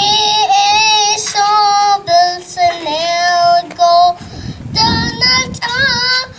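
A young girl singing solo and unaccompanied into a microphone, in long held notes with short breaths between phrases.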